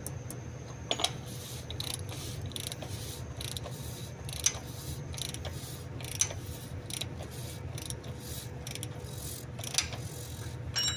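Ratchet wrench clicking in short irregular runs as the oil filter housing cap on a Mercedes-Benz Actros truck engine is turned, over a steady low hum.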